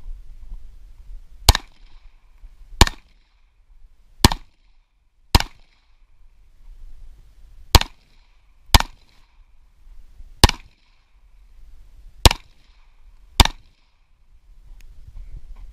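Nine shots from a .45 ACP pistol fired at competition targets, spaced about one to two and a half seconds apart, several of them in quick pairs.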